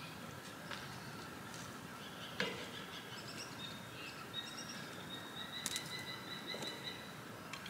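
A few sharp metallic clicks as tongs knock against a steel campfire ring, over a bird trilling steadily in the background through the second half.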